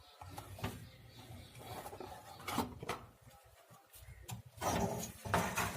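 Irregular small clicks, taps and rustles of hands handling wires and tools while power supply leads are soldered onto an amplifier board, a little louder near the end.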